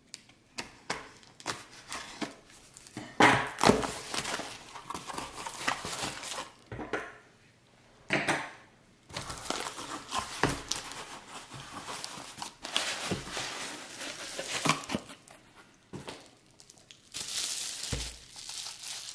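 Cardboard shipping box being opened by hand: a knife slitting the packing tape, then irregular scraping, tearing and knocks of the cardboard flaps, and crinkling of bubble wrap near the end.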